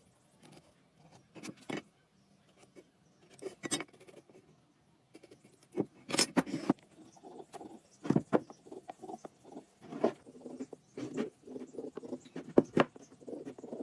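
Irregular small knocks, clicks and scraping, coming more often and louder from about six seconds in.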